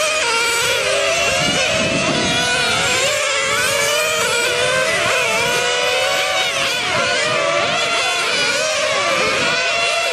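Several 1/10-scale nitro touring cars racing, the high-pitched buzz of their small glow engines overlapping. Their many pitches keep rising and falling as the cars accelerate and brake through the corners.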